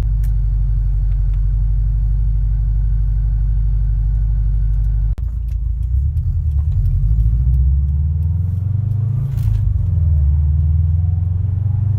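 2013 Subaru STI's turbocharged flat-four engine idling with its uneven boxer rumble, heard from inside the cabin. About five seconds in the steady note breaks off and turns louder and uneven, rising and falling as the car moves off.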